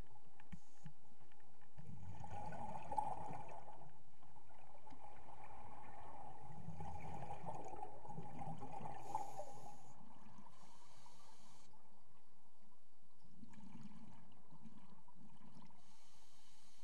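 Scuba diver's exhaled bubbles from the regulator, heard underwater: three gurgling surges a few seconds apart, in rhythm with the breathing, over a steady faint hiss.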